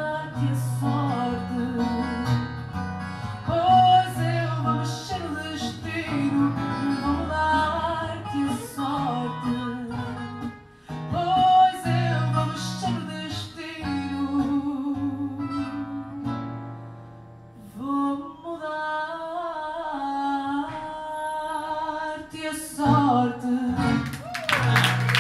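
A woman singing fado into a microphone to plucked guitar accompaniment, heard through the venue's speakers. The song ends, and applause breaks out in the last second.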